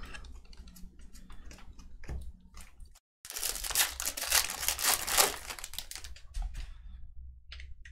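Foil trading-card pack wrapper crinkling as it is handled and opened: a dense, crackly rustle comes in after a brief gap about three seconds in and stops near the end. Before it there are faint clicks of cards being handled.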